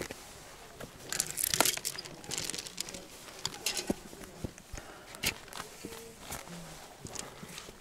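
Hiking boots stepping and scuffing on rock, with rustling of clothing and pack close to the microphone: irregular scrapes and knocks, loudest about a second and a half in.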